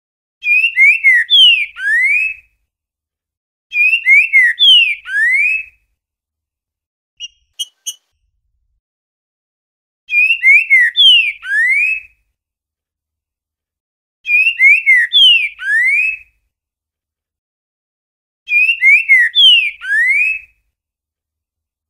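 Green-winged saltator (trinca-ferro) singing the 'boiadeiro' song type: five short phrases of clear whistled notes, each about two seconds long and ending in a rising slur, a few seconds apart. A couple of brief high notes come between the second and third phrases.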